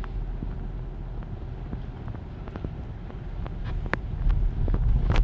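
Car driving, a steady low road and engine rumble heard from inside the cabin, with scattered light ticks; the rumble grows louder about four seconds in.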